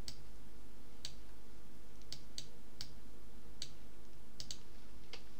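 Computer mouse clicking: about ten short, sharp clicks at irregular intervals, over a steady low hum.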